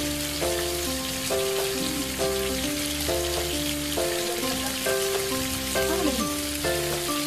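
Chopped onions frying in oil in a pan, a steady sizzle, under instrumental background music with a stepping melody over a bass line.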